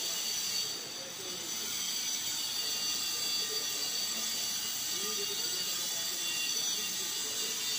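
Steady background hiss with faint, indistinct voices under it.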